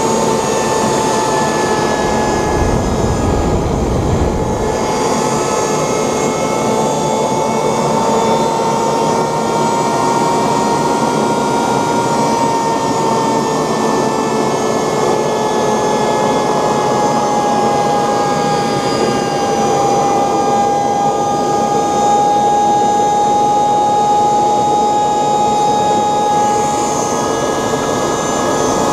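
3D-printed model gas turbine jet engine running steadily: a loud rushing roar with a high whine that drifts slightly in pitch. A brief low rumble comes through about three seconds in.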